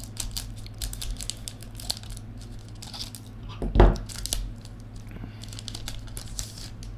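A foil trading-card pack being torn open by hand, its wrapper crackling and crinkling in irregular bursts, with one louder noise about halfway through. A steady low hum runs underneath.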